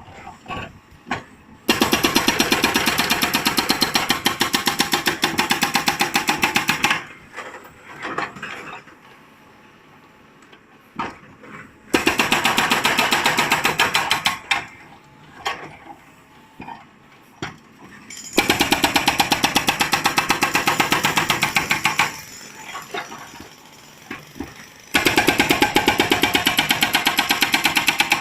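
Hydraulic rock breaker on a JCB 3CX backhoe loader hammering in four bursts of fast, evenly spaced blows, each a few seconds long. Between the bursts come scattered knocks and rattles.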